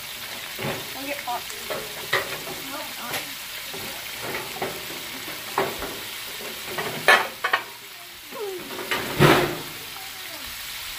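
Breaded frog legs deep-frying in a pot of grease at about 350°F, a steady sizzle, with several brief louder crackles and rustles as more pieces are laid in, the loudest about seven and nine seconds in.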